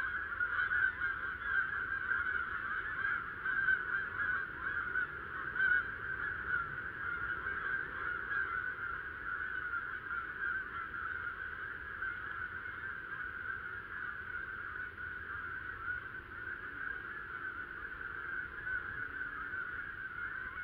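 A large flock of geese flying overhead, honking continuously, many calls overlapping into a steady chorus.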